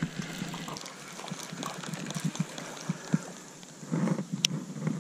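Light, irregular clicks and taps from a baitcasting rod and reel being handled, with one sharper click about four and a half seconds in.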